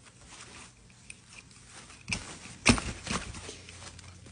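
A few knocks and clatter from the wagon parts being handled. A sharp knock comes about two seconds in and a louder one a little under three seconds in, with lighter rattling after.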